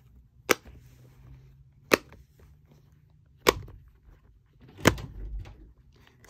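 Crab-shaped dimple fidget toy being pressed, its bubbles popping with four sharp clicks spaced about a second and a half apart.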